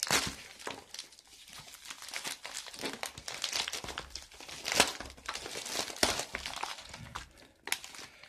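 Plastic bubble mailer crinkling and rustling as it is handled and opened, with irregular crackles, the sharpest about five seconds in.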